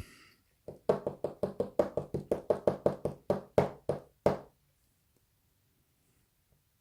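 Rapid run of about eighteen light, sharp knocks on a hard surface, about five a second, stopping after roughly three and a half seconds: a disassembled padlock's parts being tapped while a key pin is worked out of the plug.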